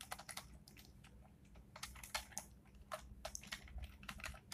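Faint computer keyboard typing: short key clicks at an uneven pace, in small clusters, as figures and a word are typed into a spreadsheet.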